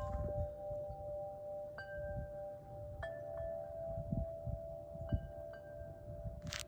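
Wind chimes ringing: several notes are struck at irregular moments and each rings on in long, steady tones.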